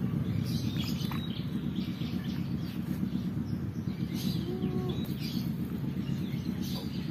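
Small birds chirping now and then over a steady low rumble.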